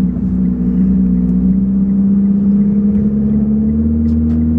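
Car engine and exhaust heard from inside the cabin while driving, a steady drone whose pitch rises slightly as the car gathers speed. The exhaust is broken at the downpipe flange.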